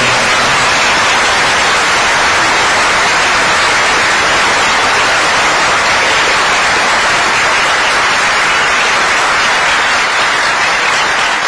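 Theatre audience applauding, a dense, steady clapping of many hands.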